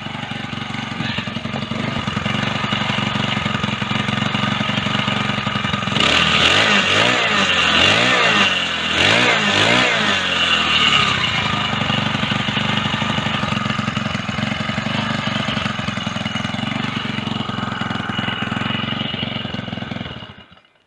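Motorised bicycle's small petrol engine running steadily, revved up and down several times about a third of the way in, then back to a steady run before cutting off near the end. It runs cleanly and smoothly.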